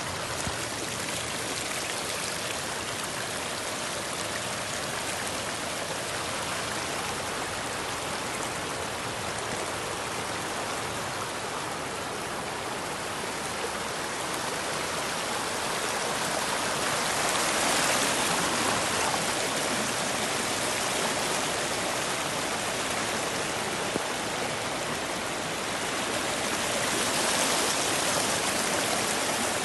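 Muddy rainwater runoff rushing over rocks and stones in a shallow, fast torrent, a steady rush that swells a little about halfway through and again near the end.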